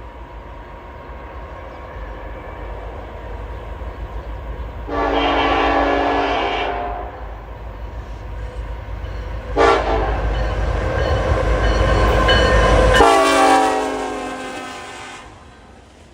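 A locomotive's Nathan K5LLA five-chime air horn sounding as the train approaches and passes, over the rumble of the train. There is one blast of a little under two seconds, then a longer blast that drops sharply in pitch as the locomotive goes by, then fades away.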